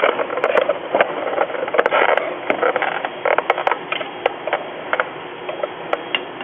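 Metal bracket and cables being handled and fitted into place inside the machine: scattered light clicks and knocks over a steady hiss.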